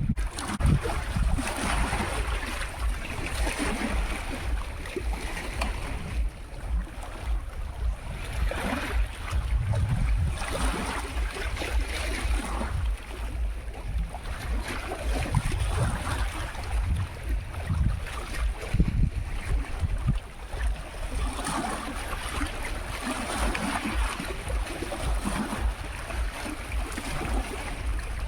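Sea of Azov waves washing onto the shore, swelling and falling every few seconds, with wind buffeting the microphone in a constant low rumble.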